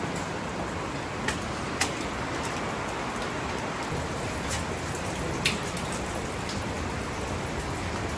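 Water dripping inside a rock tunnel over a steady rush of water noise, with a few sharp drips standing out, the loudest about two seconds in and just past the middle.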